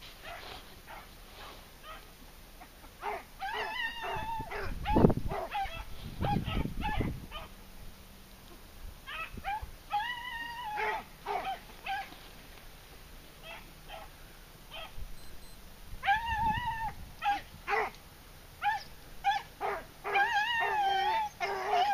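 Beagles baying and yelping on a rabbit's trail: bursts of high, drawn-out cries, several overlapping near the end. Two heavy low thumps come around the fifth and seventh seconds.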